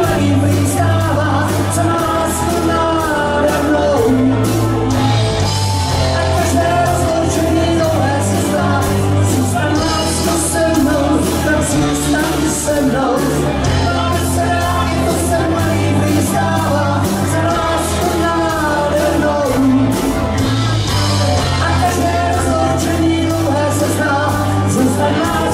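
Live rock band playing: electric guitars, bass guitar, drum kit and keyboards, with a sung vocal line over a steady beat.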